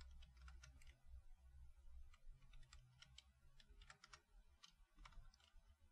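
Faint typing on a computer keyboard: a quick, irregular run of keystrokes as numbers are entered.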